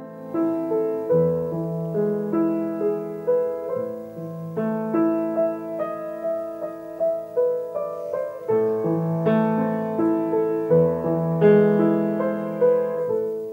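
Upright piano played solo: a slow, calm piece of broken chords, the notes rolling upward one after another over held bass notes.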